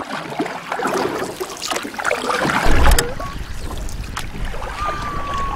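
Sea water splashing and lapping right at a floating action camera, with wind buffeting the microphone, loudest about halfway through. A thin whistling tone comes in near the end.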